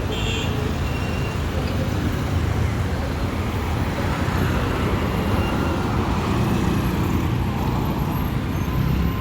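Steady street traffic noise, with a low rumble of vehicle engines running.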